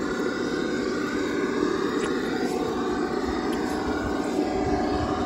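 Traxxas TRX-4 Land Rover Defender RC crawler's electric motor and geartrain whining as it crawls over loose rocks, the whine rising and falling in pitch with the throttle, with a couple of faint clicks of tyres on stone.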